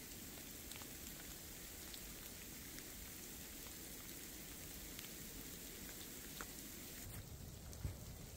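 Light rain falling in the forest: a faint, steady hiss with scattered drop ticks. Near the end, a few footsteps on snow.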